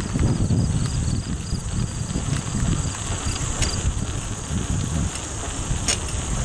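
Wind and ride noise rumbling on the microphone of a moving bicycle, over a steady high drone of insects in the meadow. A fainter repeated insect chirp comes a few times a second and fades out about halfway through.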